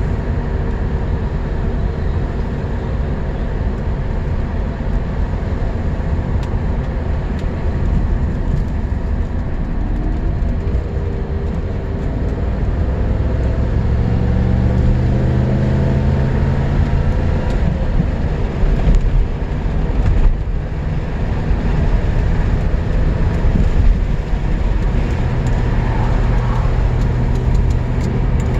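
Lancia Thema 8.32's Ferrari-built 32-valve V8 driving the car along, over steady road noise. Its pitch rises twice as the car accelerates in the middle, drops back, then runs steady.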